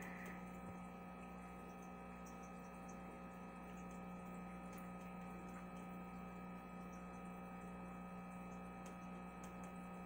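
Steady low hum of aquarium equipment, with faint steady higher tones above it.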